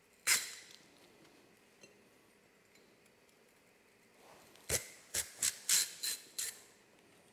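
Hand vegetable peeler scraping strips off a raw carrot: one stroke just after the start, then six quick strokes in a row about two thirds of the way in.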